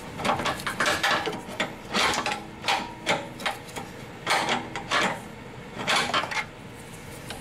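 Steel pry bar levering and scraping against a 10th-generation Honda Civic's rear upper control arm and its mount, a run of irregular metallic clicks and knocks as the arm is worked loose.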